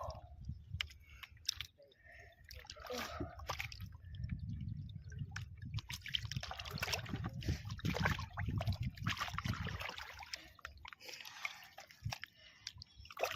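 Water sloshing and splashing in irregular bursts, heaviest in the middle of the stretch, over a low rumble.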